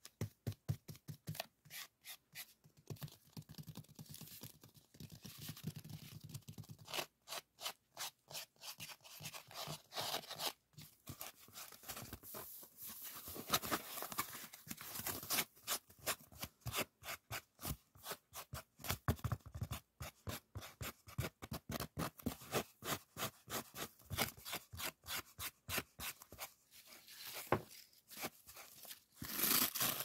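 Fingertips tapping and scratching on a sheet of white foam sponge: a long run of short, crisp strokes, several a second.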